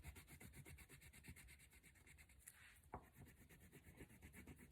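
Faint scratching of a crayon being rubbed back and forth on paper while colouring, with a light tap about three seconds in.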